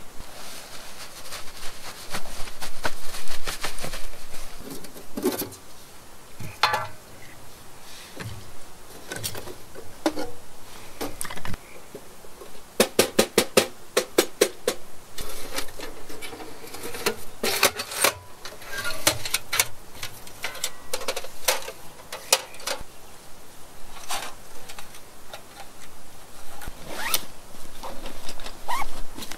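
Camping gear being handled and packed by hand: rustling of bags and fabric with scattered clicks and knocks, and a quick run of about a dozen clicks a little before halfway.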